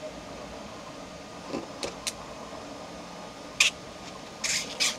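A handful of short plastic clicks and scrapes from a small 3D-printed magnet insert tool being worked against a small printed part. The loudest is about three and a half seconds in, and two more come close together near the end. A steady fan-like hum runs underneath.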